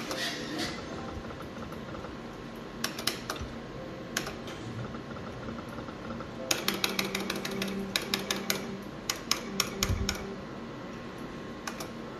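Slot machine buttons being pressed: a few sharp clicks, then a quick, irregular run of clicks in the middle, over the machine's faint hum and held tones.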